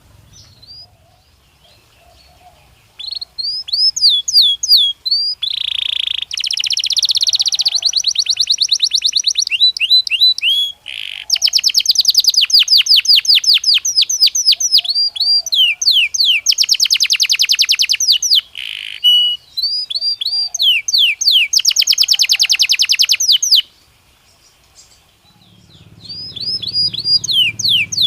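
Belgian canary (domestic canary) singing: fast, loud trills and runs of repeated downward-sliding whistled notes, in phrases broken by brief pauses. The song starts about three seconds in and stops for a moment near the end.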